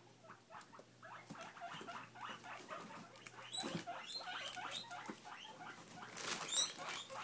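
Guinea pigs chewing lettuce, a quick run of small crunches, with a few short high squeaks (begging wheeks) about four seconds in and again near the end.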